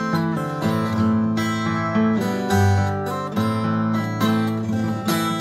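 Acoustic guitar played solo: strummed chords with picked bass notes in a steady folk rhythm, an instrumental break with no singing.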